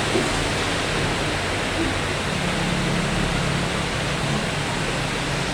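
Heavy rain falling, a steady even hiss, with a faint low hum joining about two seconds in.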